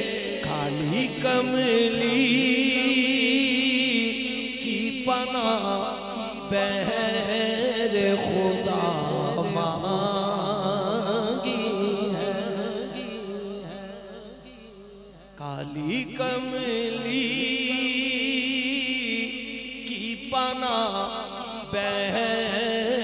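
A man singing a naat, an Urdu devotional poem in praise of the Prophet, in long melodic lines with wavering, ornamented pitch. The voice fades away about fourteen seconds in and comes back a second or so later.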